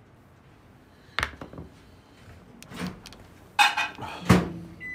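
Handling noise from a phone camera being picked up and moved: a few knocks and rubbing, the two loudest knocks near the end.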